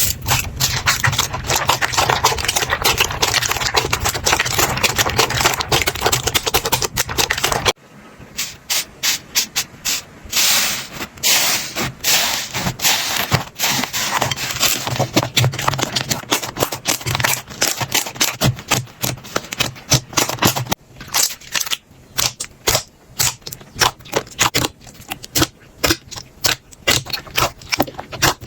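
Slime being squished and pressed by hand: dense, continuous crackling for the first several seconds, then, after an abrupt cut, rapid sharp clicks and pops.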